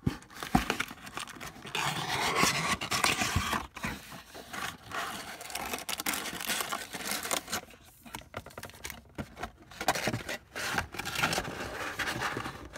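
Cardboard trading-card box being handled and opened: the flaps and sides rubbing and scraping, with scattered clicks and knocks, busiest about two to four seconds in.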